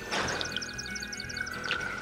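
Background music: a steady held tone with a quick run of short, high notes in the first second or so.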